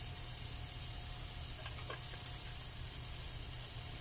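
Pork chop sizzling steadily in hot canola oil in a skillet, with a small tick about two seconds in.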